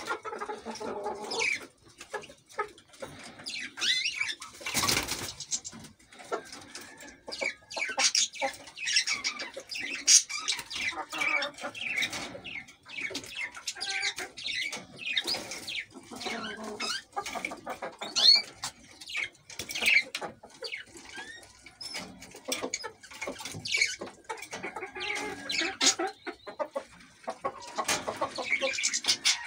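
Caged canaries and European goldfinches chirping and singing, with many short, quick notes that slide up and down in pitch. A short rustling burst, likely wings in the cage, about five seconds in.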